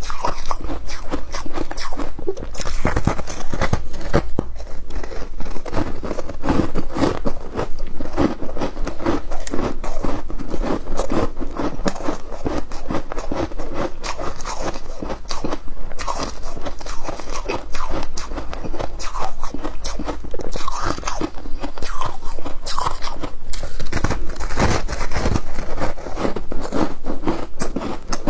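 A person biting and chewing foam ice topped with flaked ice, in a dense, continuous run of crisp crunches.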